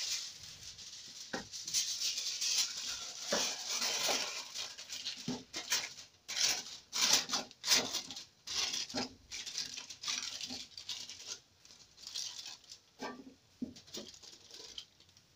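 Aluminium foil crinkling and rustling in irregular bursts as it is pressed and crimped around the rim of a pot. Near the end, a few light knocks as a metal lid is set on top.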